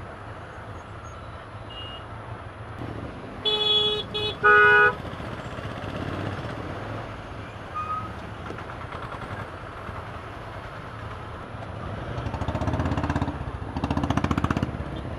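Motorcycle riding in heavy, congested road traffic, engines running, with a vehicle horn honking twice, loudly, about three and a half and four and a half seconds in. An engine picks up louder near the end.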